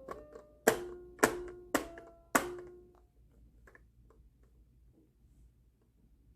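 A small tuned percussion toy struck four times in about two seconds, each note ringing and fading, like a toy xylophone. Then near quiet.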